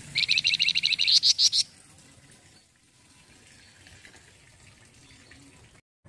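Flamboyan songbird giving a loud, rapid trill of about fifteen sharp notes, roughly ten a second, lasting about a second and a half and stopping abruptly.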